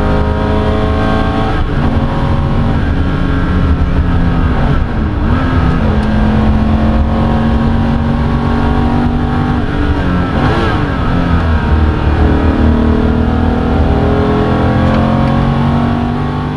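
Porsche 993 Carrera 2's air-cooled flat-six heard from inside the cabin under hard acceleration, its pitch climbing through the revs and breaking off at each gear change. Around five and eleven seconds in the revs drop sharply and come back up as the driver shifts down, before the engine pulls up through the gears again.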